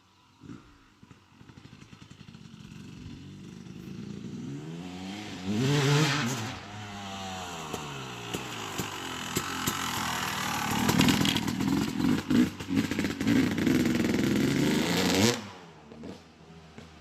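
2008 Yamaha YZ250 two-stroke single, bored out to 285, revving and pulling as it is ridden. Its pitch rises and falls through the throttle, loudest about six seconds in and again in a long stretch near the end, before it cuts off suddenly.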